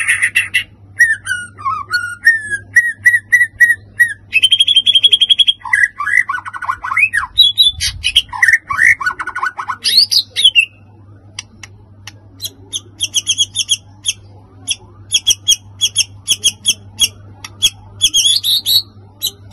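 White-rumped shama singing a varied song of whistled phrases, trills and quick note runs. About twelve seconds in, the song turns into a long series of short, sharp repeated notes. A faint steady low hum lies underneath.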